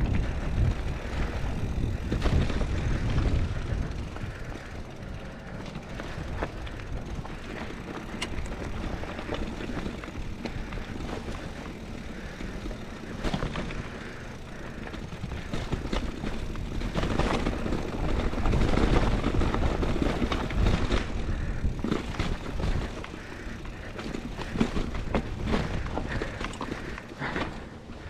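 Scott Spark 950 full-suspension mountain bike rolling down a rocky dirt singletrack: knobby tyres crunching over dirt and stones, with the bike rattling and clicking over bumps throughout. A low rumble swells near the start and again about two-thirds of the way through.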